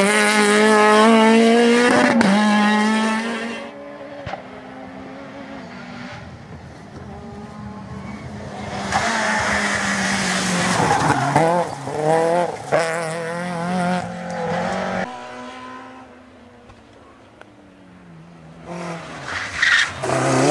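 Rally car engines at high revs, pitch rising and falling through gear changes, loud in three bursts: at the start, in the middle and near the end.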